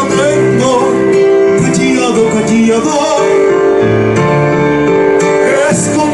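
A man singing through a microphone, holding long notes, accompanied by a Korg electronic keyboard.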